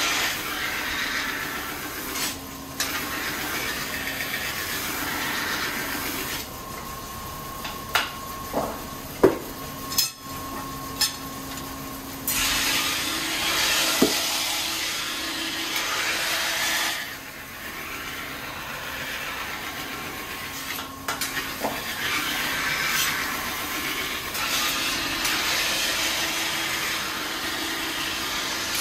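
Kitchen knife blade being ground on a sharpening stone: several hissing grinding passes a few seconds long, separated by quieter pauses, with a few sharp clicks near the middle, over a steady low hum.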